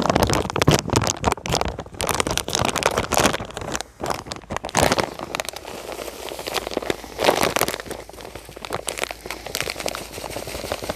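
A plastic bag of dry groundbait crinkling as it is handled and tipped into a bucket, with dense irregular rustling and crackling of the bag and of the bait being worked by hand. The dry groundbait is going in to stiffen a feeder bait mix that has turned too wet and muddy.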